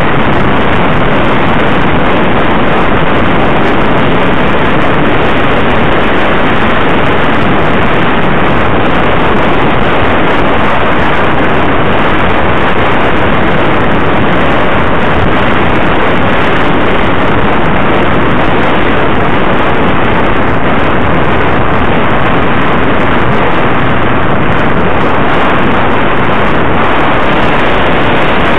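Loud, steady wind and road noise on the microphone of a camera riding on a moving vehicle at road speed; an even rush with no distinct engine note standing out.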